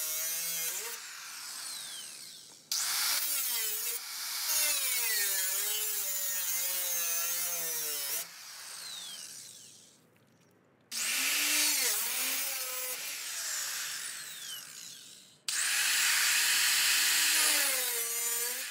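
Corded handheld grinder with a cutting disc cutting the sheet metal of a Nissan 240SX's front fender, its whine wavering as the disc bites. It runs in bursts: the tool starts suddenly about three, eleven and fifteen seconds in, and its whine falls away as the motor winds down between cuts.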